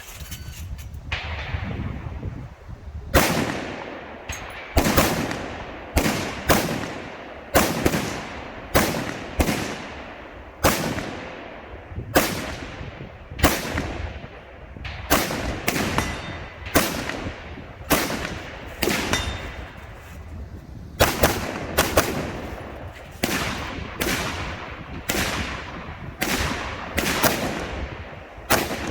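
Rifle shots fired in a long, fairly steady string, about one a second with a few quick doubles, each cracking sharply and trailing off in an echo. The string begins about three seconds in.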